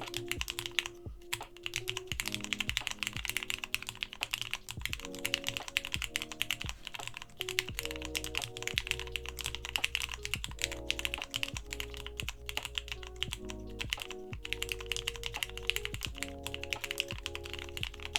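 Steady, fast typing on a stacked acrylic mechanical keyboard (ShrimpKeys V40105) fitted with lubed, filmed and spring-swapped Cherry MX Black linear switches and ABS keycaps, with short pauses about a second in and again near the end. Background music plays underneath.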